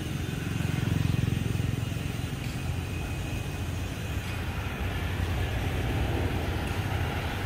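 Road traffic: motorcycle and car engines and tyres passing along the avenue, with a low rumble that swells about a second in.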